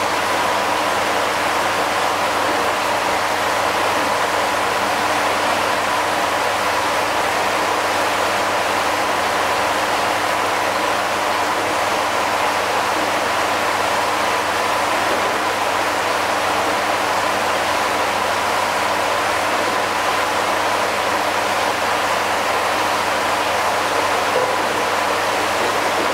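Steady rush of running water in a koi pond, with a faint steady tone under it.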